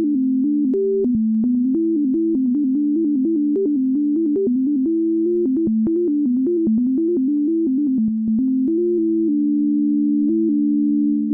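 Heartbeat data sonified as synthesizer tones: a steady low drone under a second tone that steps up and down in pitch several times a second, each step marked by a faint click. Near the end the upper tone settles and holds one pitch.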